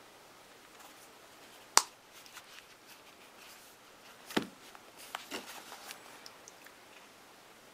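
A smartphone and its black leather wallet case being handled: a sharp click about two seconds in, a duller knock a couple of seconds later, then a few light clicks and taps.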